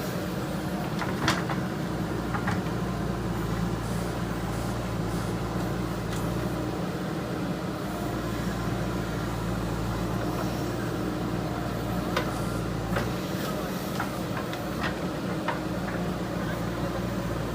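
Diesel engine of a JCB 3DX Super backhoe loader running, its low note dipping briefly twice, with a few sharp knocks scattered through.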